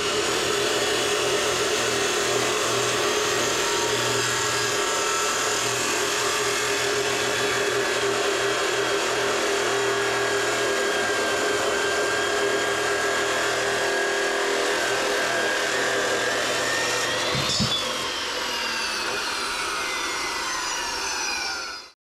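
Angle grinder running steadily on steel, then switched off about 17 seconds in, its whine falling as the disc winds down.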